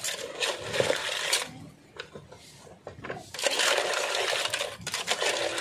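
Crab shells and a metal spoon clattering and scraping against a steel cooking pot as crabs are turned in coconut milk, in two busy spells with a short lull between them.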